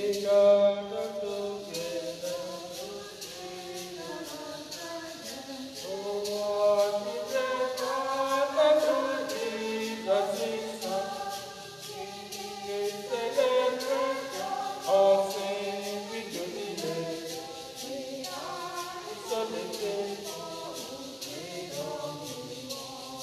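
Church choir singing the offertory hymn: several voices in held chords, with a light, steady ticking beat underneath.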